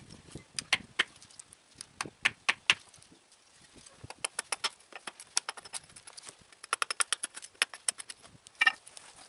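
Undercut carpenter's hatchet chopping and carving a split stick held upright on a chopping block: sharp knocks of steel into wood. Some strikes come singly and some in quick runs of light taps, with a hard strike near the end.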